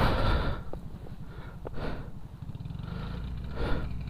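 A Honda XR400R's single-cylinder four-stroke engine idling with a steady low thump. Three hissy rushes of heavy breath come over it, at the start, about two seconds in and near the end.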